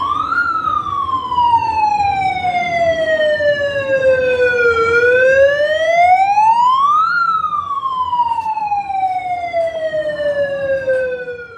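A handheld megaphone's siren wailing loudly. Twice, the pitch climbs quickly and then sinks slowly over several seconds.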